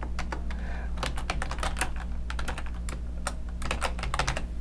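Typing on a computer keyboard: quick, irregular clusters of key clicks, over a steady low hum.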